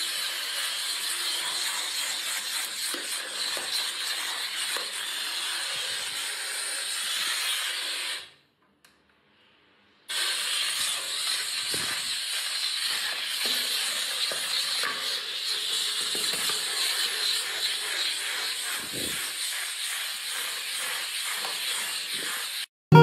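Handheld steam cleaner jetting steam, a steady hiss that cuts out for about two seconds partway through, then resumes and stops shortly before the end.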